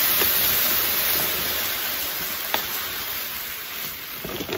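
Dry jasmine rice pouring from a sack into a clear plastic storage container: a steady hiss of grains that fades gradually as the pour goes on, with a single light tick about two and a half seconds in.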